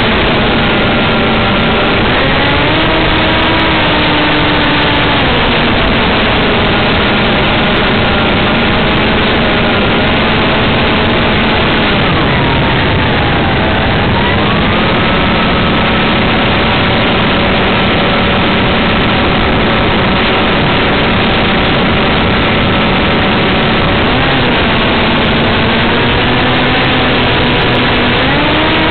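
Motor and propeller of a radio-controlled FPV plane, heard from the aircraft's onboard camera over a dense rush of air. The pitch steps up and down as the throttle changes: it rises about two seconds in, drops a few seconds later, dips and recovers around the middle, and rises again near the end.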